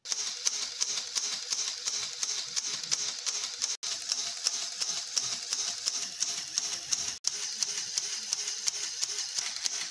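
Motor-driven Lego Technic gun mechanism running: plastic gears, a wheel and a crank-driven lever clattering in a fast, even rattle of clicks.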